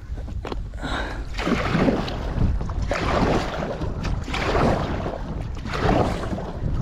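Sea water lapping and sloshing against the hull of a Viking Profish 400 kayak, in uneven swells every second or two, over a steady low wind rumble on the microphone.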